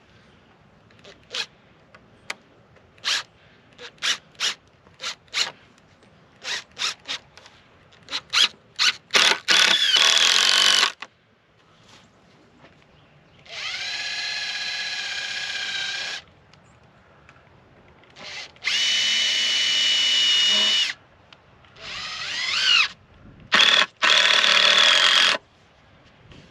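Power drill driving exterior screws into a 2x4 brace: a string of short trigger blips, then several runs of a second or more at steady speed, one climbing in pitch as the motor speeds up.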